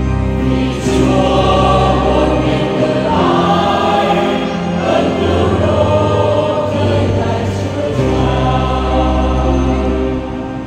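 Mixed church choir singing a hymn in harmony, over an accompaniment of long held low notes. The voices are fullest in the middle stretch, and the bass notes stand out more at the start and near the end.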